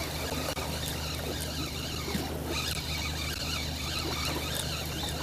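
Fishing boat's engine running steadily: a low even hum under a steady haze of wind and water noise.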